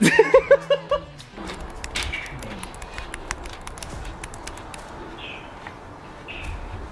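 A person laughing in a quick run of short bursts, then a low background scattered with light irregular clicks.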